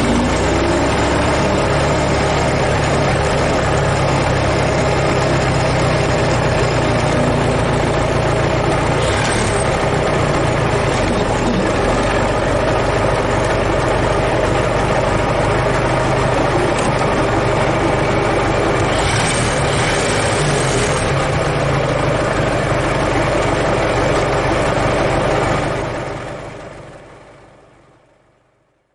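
Ford Model T's four-cylinder engine running steadily, then fading out over the last few seconds.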